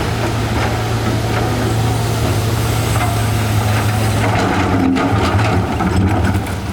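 Excavator's diesel engine running steadily, with scattered knocks and scrapes of rock being moved.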